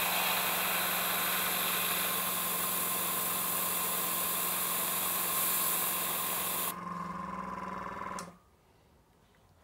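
Airbrush spraying paint, a steady hiss that stops about seven seconds in. The airbrush compressor's hum carries on a little over a second longer, then cuts off.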